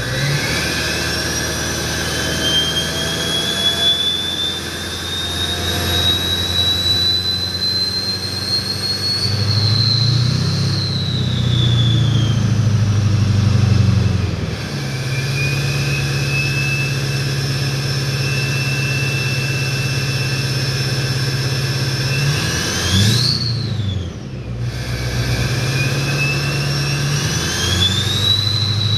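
LBZ Duramax 6.6-litre V8 turbo-diesel with a 65mm stage 2 turbo and a muffler-less 4-inch single exhaust, running under throttle. The turbo whistle climbs slowly in pitch, then falls away. It spools up twice more, the second time cut off by a sudden drop as the throttle lifts, before whistling up again near the end.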